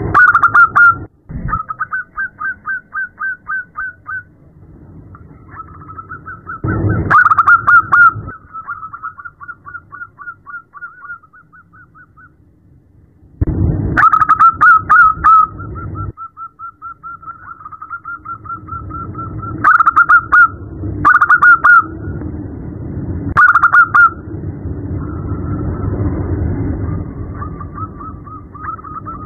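Zebra dove (perkutut) calling: runs of short, quick notes, about five a second, in bouts broken by brief pauses, some clusters louder than others. It is a female zebra dove's call to a male.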